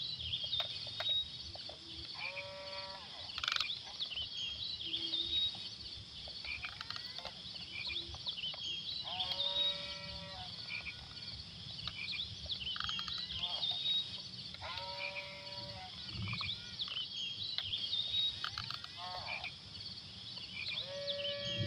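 Frogs croaking in short calls that recur every few seconds, over a steady high chirping chorus.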